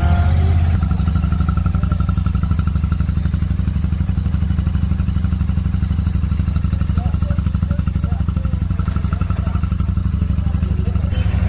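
Royal Enfield Shotgun 650's parallel-twin engine idling steadily, its exhaust giving a loud, even, rapid beat with no revving.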